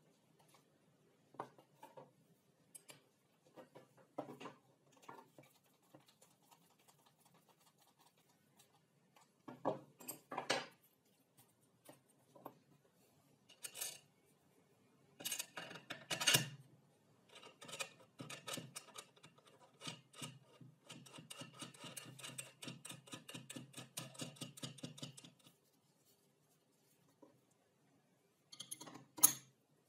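Small metal hardware and wooden parts handled on a workbench: scattered clicks and clinks of nuts, washers and bolts against wood. About halfway through comes a long run of fast rattling ticks, and there is a sharp click near the end.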